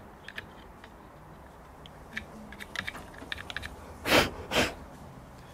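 Small screwdriver tip scraping and ticking against the plastic housing of a string-trimmer speed-feed head as dirt is picked out of it: light, irregular clicks. Two short, louder rushes of noise come close together near the end.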